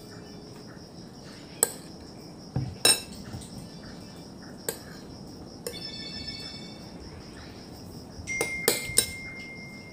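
Metal spoon clinking against a dish while eating: single sharp clinks every second or two, one ringing on briefly, and a quick run of clinks near the end.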